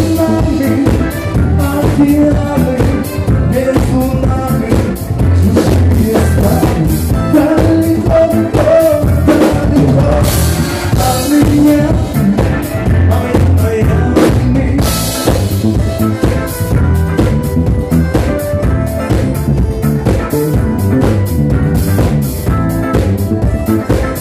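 Live band playing a groove: electric bass guitar over a drum kit, with cymbal crashes around the middle.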